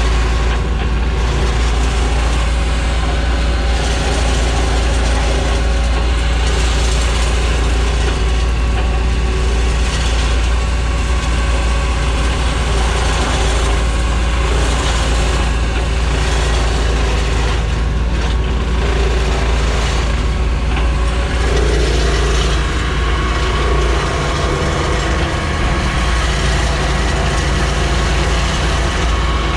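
A heavy engine running steadily under load, a loud continuous drone with a deep low hum.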